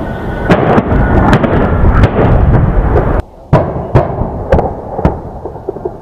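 A-10 Thunderbolt II attack jet's turbofan engines rumbling overhead with a steady whine, broken by a string of sharp cracks and booms. The sound drops away briefly a little past three seconds in, then the rumble and cracks return.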